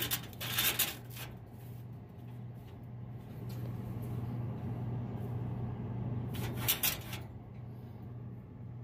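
Sheet-metal parts inside a soda vending machine's column clanking and scraping as a depth adjustment is moved by hand, in two short bursts of clicks and rattles, about a second in and again near the seven-second mark. A steady low hum runs underneath.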